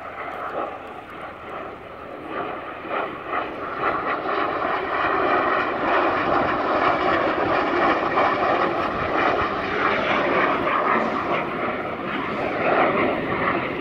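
Twin jet engines of a Messerschmitt Me 262 replica flying past: a steady roar with a whine, growing louder about four seconds in and holding.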